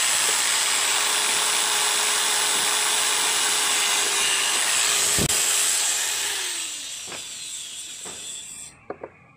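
Handheld electric drill running steadily as it bores into the subwoofer's wooden enclosure at the edge of the speaker cutout. About six or seven seconds in the drill stops and its whine falls away as it spins down, followed by a few light knocks.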